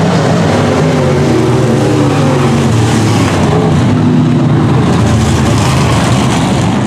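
Engines of several semi-late model dirt race cars running hard together, their pitch falling and rising as the cars lift and accelerate around the oval.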